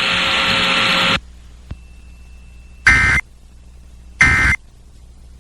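Emergency Alert System end-of-message data bursts: two short, shrill, buzzing digital tone bursts about 1.3 s apart, the EAS code that closes a warning. Before them, a second of radio hiss cuts off abruptly.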